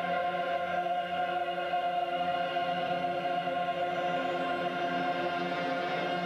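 Opera chorus holding one long sustained chord.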